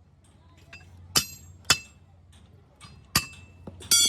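Hammer striking steel: four sharp, ringing metal blows at uneven intervals, the last and longest near the end.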